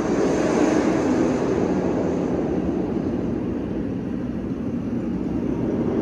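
Steady drone of a large mobile crane's engine running while it lifts a section of roller-coaster track.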